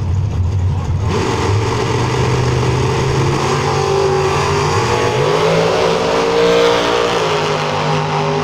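Two drag cars launching off the line about a second in and accelerating hard down the strip. Their engine note climbs and steps up in pitch as they pull away.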